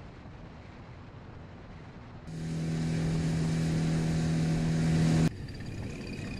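Outboard motor running steadily at speed with the boat underway, a loud even engine hum that starts suddenly about two seconds in and cuts off sharply about three seconds later. Before and after it there is only a lower rushing noise.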